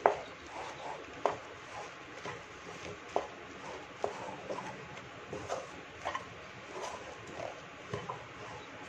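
A spatula scraping and knocking against a pan as thick rice-flour dough is stirred, in irregular short taps about once a second.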